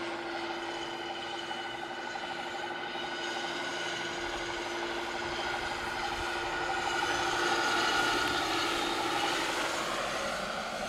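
Large scale radio-controlled Mil Mi-8 model helicopter in flight, its rotors and drive giving a steady whine with several tones at once. It grows louder to a peak about eight seconds in as it passes close, then fades.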